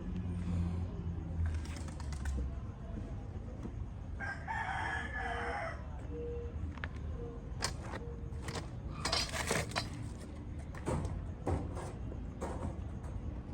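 A rooster crowing once, a call of about a second and a half, followed by a few scattered sharp knocks.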